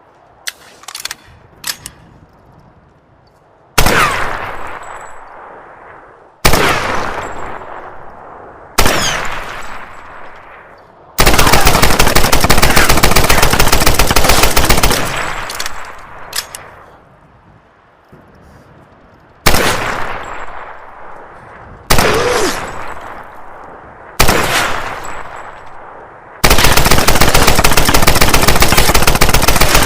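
Japanese Type 100 submachine gun firing. A few light clicks come first, then three short bursts, a long burst of about four seconds, three more short bursts and another long burst near the end, each trailing off in a long echo.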